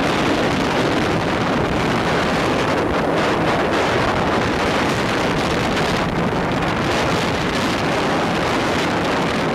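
Speedboat running fast: steady engine noise mixed with heavy wind buffeting the microphone and water rushing past the hull.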